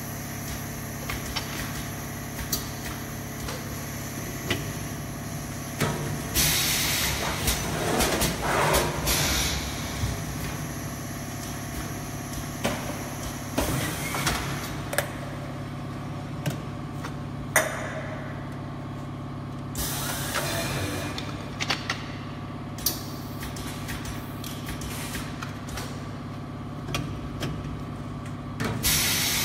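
Isobaric can filling and seaming machine running with a steady hum, broken several times by bursts of hissing air lasting a second or two. Short metallic clicks and clinks of aluminium cans being set on the filling stations come in between.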